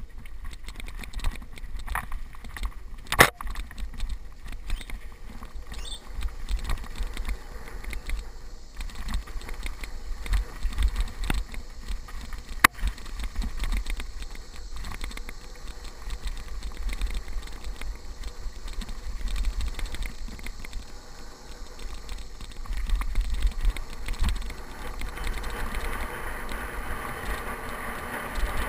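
Mountain bike riding down a dirt trail: tyres on dirt and the bike rattling, with sharp knocks over bumps, the loudest about three seconds in and another near the middle. Wind rumbles on the on-bike microphone throughout, and a louder rushing noise builds over the last few seconds as the bike picks up speed.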